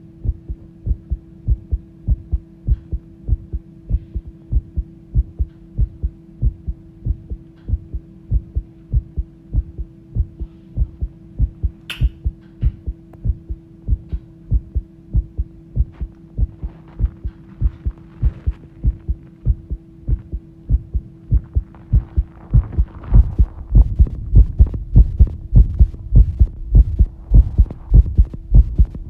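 Human heart beating fast: a quick, regular train of low thumps over a steady hum, the sign of a racing heart. About halfway through there is one sharp click, and in the last quarter the beats grow louder with some rustle added.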